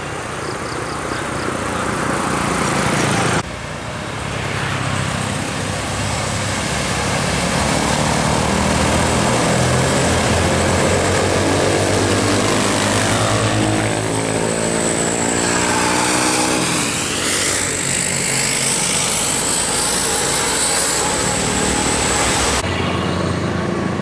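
Tour bus and motorcycles driving past on a hill road: the bus's diesel engine drone grows louder as it approaches, then drops in pitch as it passes, about halfway through. The sound breaks off abruptly about three seconds in and picks up again.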